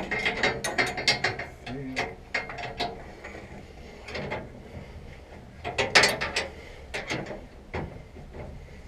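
Hand ratchet wrench clicking in quick runs of strokes as a bolt is loosened, with one spell at the start and another about six seconds in.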